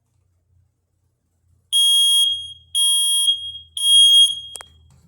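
Smoke detector sounding its test alarm: three loud, high-pitched beeps, about one a second, starting nearly two seconds in, in the standard three-beep alarm pattern. A sharp click follows near the end.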